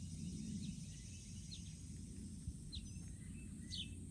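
Birds giving a few short, separate chirps over a steady low outdoor rumble and a faint high steady hiss.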